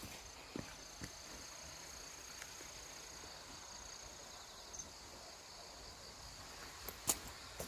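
Insects singing in the grass: a steady high-pitched trill that stops about five seconds in, over a fainter continuous insect chorus. A few light clicks, and one sharp click near the end.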